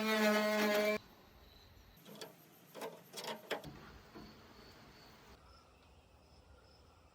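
Plucked-guitar background music that stops about a second in, followed by faint quiet ambience with a few soft clicks. Later a faint cricket chirps at a steady rate, roughly one to two chirps a second.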